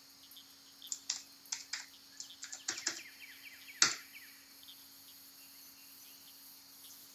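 Computer keyboard typing: a short run of key clicks as a terminal command is entered, then one louder key press just before four seconds in, the Enter key that runs the script. A faint steady hum underneath.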